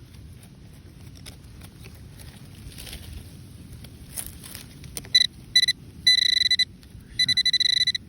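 Metal detector sounding over a buried metal target: about five seconds of low background noise, then two short beeps followed by longer steady tones, one of them rapidly pulsing.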